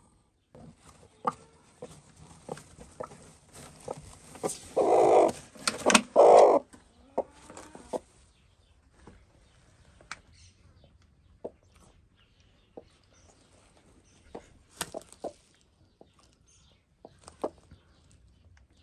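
Broody Gurk hen on her nest giving two loud, harsh calls about five and six seconds in, the protest of a sitting hen disturbed by a hand reaching under her. Short rustles and taps of straw and handling run around them, with scattered quiet clicks later.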